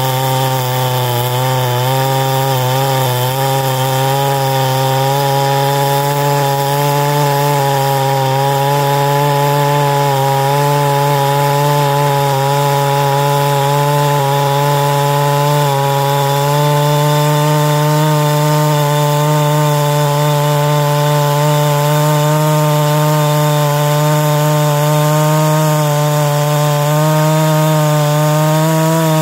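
Clone two-stroke chainsaw with a 36-inch bar and full-chisel chain running under load, cutting through a thick log of green hardwood. The engine holds a steady pitch that lifts slightly about halfway through.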